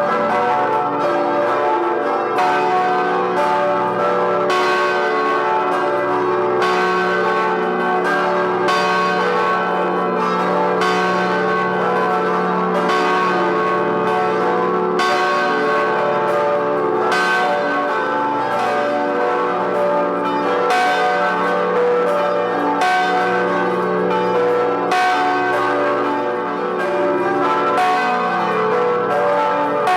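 Several large church bells of the Vilnius Cathedral belfry ringing together in a full peal. Their tones overlap and hum on without a break, and a fresh stroke stands out about every two seconds.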